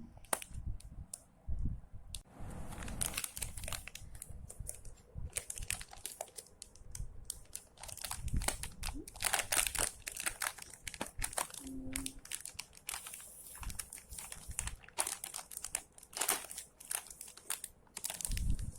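Packaging of a painting kit being crinkled and torn open by hand: irregular crackling and rustling.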